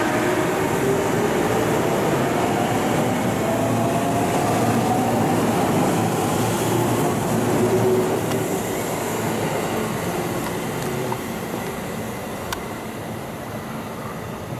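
Mixed 211 series and 313 series electric multiple unit train pulling away: rumble of the cars rolling past with a whine that rises in pitch as it gathers speed. After about eight seconds it fades as the last car moves away.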